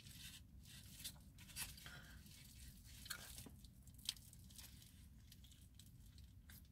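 Faint crinkling of a foil burrito wrapper, with quiet biting and chewing and a few small sharp crinkles.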